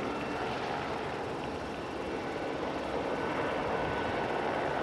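Airbus A220-300's Pratt & Whitney PW1500G turbofan engines running steadily as the jet taxis: a constant rushing noise with a faint high whine.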